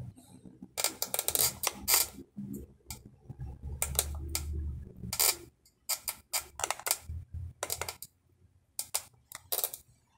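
Clusters of sharp plastic clicks from buttons being pressed on an H-Buster car DVD/TV head unit's front panel, several quick presses at a time, with a low hum under them about four seconds in.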